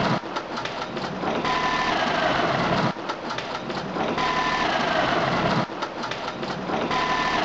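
Caterpillar 3406B inline-six turbo diesel running on an engine test stand, its sound swelling and easing in a regular cycle about every three seconds, with a thin steady whine and a faint falling whistle in each louder stretch.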